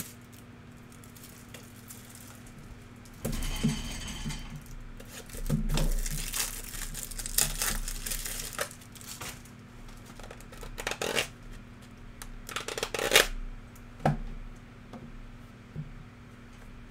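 Trading card pack wrappers being torn open and crinkled, in several rustling bursts, with a sharp tap a little after the last one.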